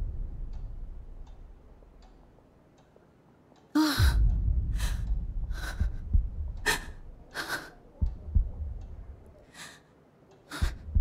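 A woman's sharp, gasping breaths, about six of them starting around four seconds in, over a low rumble.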